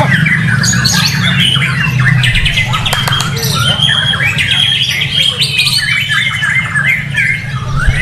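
White-rumped shama singing a loud, varied song of rapid whistles, glides and trills, with no break, over a steady low background hum.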